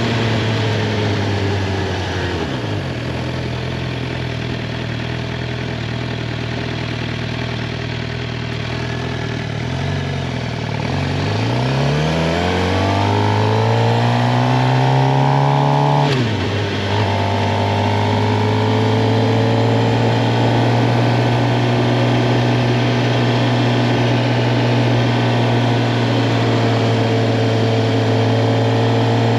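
Suzuki GSX-R 750 inline-four engine under way. Engine speed falls about two seconds in and stays low. From about ten seconds it rises steadily, drops sharply at an upshift near sixteen seconds, then holds steady at cruise.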